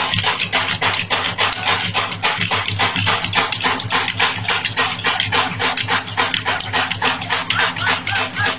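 Kashmiri folk dance music: drums keep a fast, steady beat of about four strokes a second over a steady low drone.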